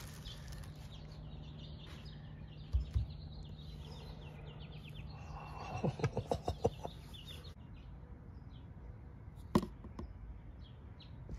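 Faint handling sounds: a few light clicks and taps over a low steady hum, with a quick run of ticks about six seconds in and one sharp tap near the end.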